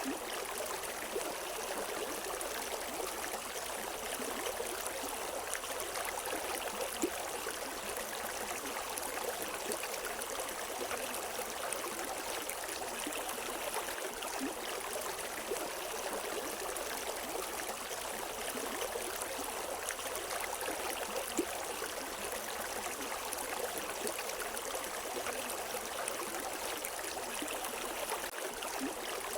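A river's water running over rocks, a steady rushing with small splashes and trickles throughout, no birds.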